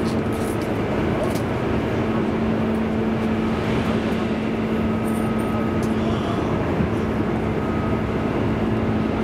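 Running noise inside a JR East 205 series electric commuter train in motion: a steady rumble of wheels on the rails with a steady low hum underneath.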